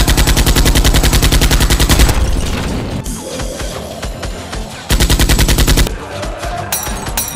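Rapid automatic gunfire, about ten shots a second, in two bursts: one of about two seconds, then after a pause a shorter one of about a second.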